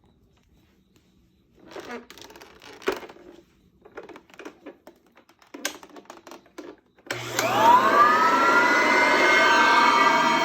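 Some handling clicks and rattles, then the Oreck XL 4000 upright vacuum cleaner switches on about seven seconds in. Its motor whine rises as it spins up and then holds steady while it runs.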